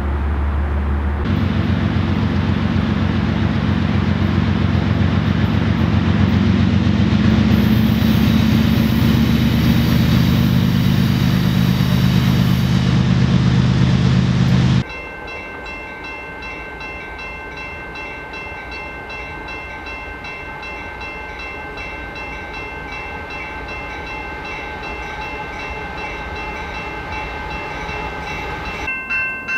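BNSF diesel-electric freight locomotives passing close by, their engines running loud and steady over the rumble of the train. About halfway through, the sound cuts abruptly to a quieter Union Pacific freight train approaching, with several steady high-pitched tones held over the rumble.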